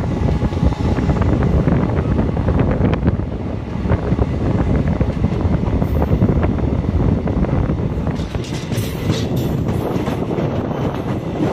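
DEMU train running at speed, heard from the open side of the coach: a steady rumble of wheels on the rails. From about eight seconds in, sharper clicks and clatter join in as the wheels cross the points into a station yard.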